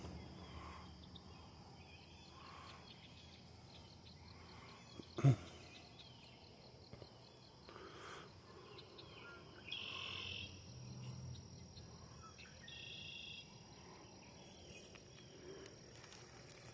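Insects droning steadily on one high pitch, with a single sharp click about five seconds in and two short, higher calls near ten and thirteen seconds.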